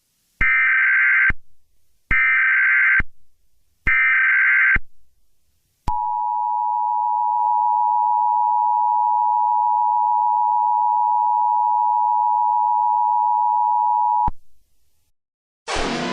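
Emergency Alert System tones: three loud warbling data bursts of the SAME header, each about a second long and evenly spaced. These are followed by the two-tone EAS attention signal, held steady for about eight seconds, which cuts off abruptly. The sequence marks the start of a new emergency alert. Another loud sound starts just at the end.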